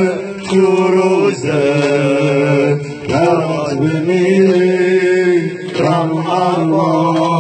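Male singing of a Persian noha, a Shia mourning lament for Imam Hussain, chanted in slow, long-held lines.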